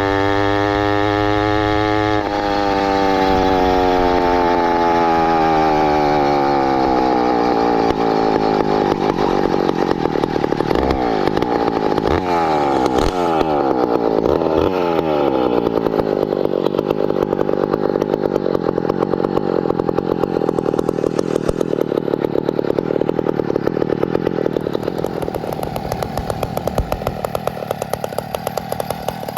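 Small engine of a motorized bicycle running under way. Its pitch falls about two seconds in as it slows, it revs up and down several times in quick succession a little later, then it runs steadily and eases off near the end.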